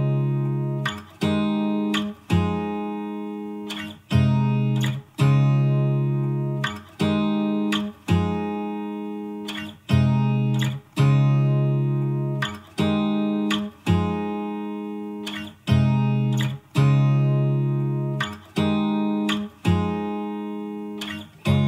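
Background music: acoustic guitar playing chords one at a time, about one every second or two, each left to ring and fade before the next.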